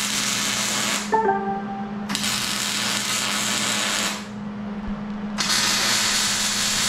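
MIG welder arc sizzling in three welds of about two seconds each: the first stops about a second in, the next runs from about two to four seconds in, and the last starts about five and a half seconds in. Background music with a steady low note plays underneath.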